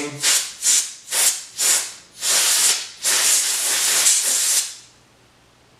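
Can of compressed air duster spraying through its straw in four quick puffs, then two longer blasts, the last about a second and a half long, blowing dust out of a night-vision eyepiece.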